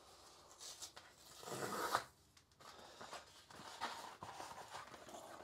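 Faint rustling and handling of product packaging as the next item is taken out, with a louder scraping rasp lasting about half a second, around one and a half seconds in.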